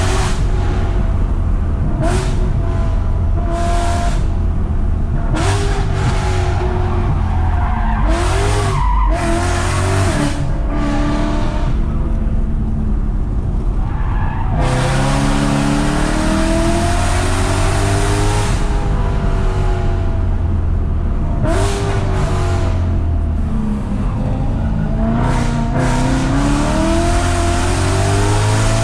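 BMW E92 M3's 4.0-litre V8 heard from inside the cabin, loud, its revs climbing and falling again and again as the car accelerates out of bends and lifts or shifts down for the next.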